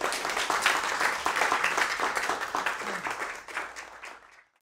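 Audience applauding, a dense patter of many hands clapping that fades over the last second or so and then cuts off abruptly.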